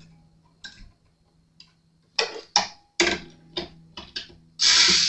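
Small clicks and taps from handling the cheap acoustic guitar's tuners and strings as it is strung up: a few faint ticks, then a quick run of about eight sharp clicks. A loud steady hiss-like noise starts about a second before the end.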